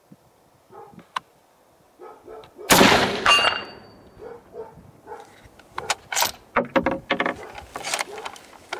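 A single shot from a Remington 700 bolt-action rifle in .308 Winchester, about three seconds in, followed about half a second later by a brief high ringing from the AR500 steel gong as the bullet strikes it. Scattered small knocks and rustles come after.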